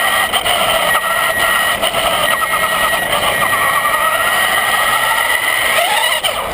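Electric drive motor and gears of a Traxxas Slash RC truck whining as it drives, picked up by a camera mounted on the truck. A steady high whine runs with wavering tones beneath it, and a quick rising whine comes near the end as the throttle is opened.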